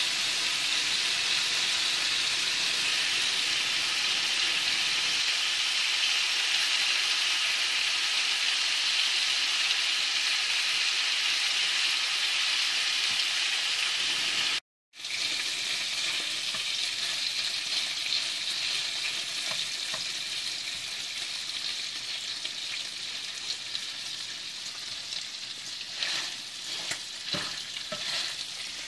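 Bacon strips frying in a hot pan: a steady sizzle, cut off for a moment about halfway, then going on a little quieter with scattered crackles and pops near the end.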